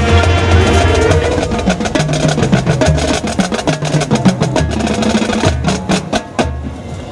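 Marching band playing its field show: held brass chords over a low drum pulse, then a run of rapid, sharp percussion hits that thins out and drops in level near the end.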